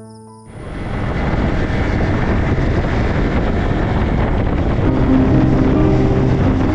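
Motorcycle on the move: steady loud engine rumble mixed with wind rushing over the microphone, starting suddenly about half a second in and building over the next second.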